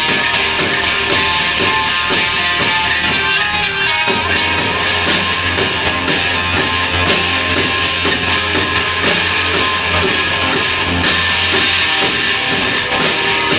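Loud rock music played by a band, with electric guitars and a drum kit keeping a steady beat. The bass end gets heavier about four seconds in.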